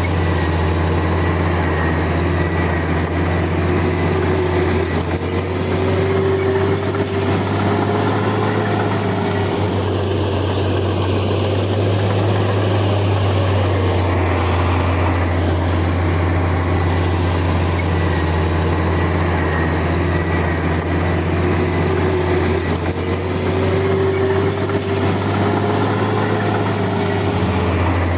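Heavy earthmoving machinery running: a steady, loud low diesel drone, with a higher whine that rises and falls twice as the machine works.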